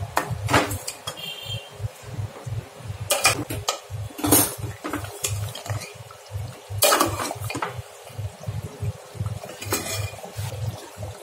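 A metal ladle stirring thick nihari gravy in an aluminium pressure-cooker pot, knocking and scraping against the pot's sides in scattered clinks. The gravy has just been thickened with a flour slurry.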